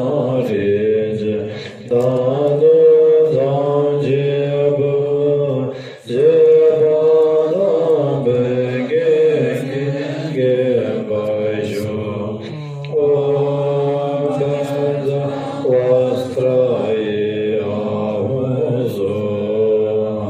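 Tibetan Buddhist prayers chanted aloud in a steady sing-song recitation, in long phrases with short breaks for breath every few seconds.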